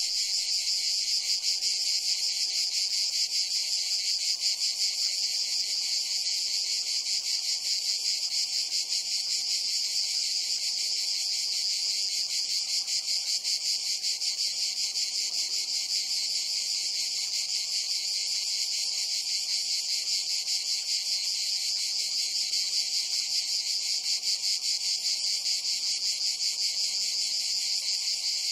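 Dense, steady chorus of chirring insects: a high, unbroken buzz with a fast pulse in it that does not let up.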